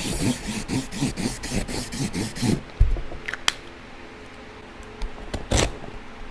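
Address-blocking roller stamp rolled over a parcel's shipping label: a rapid run of clicks, about six a second, that stops after some two and a half seconds. A few light taps and a short scrape against the box follow.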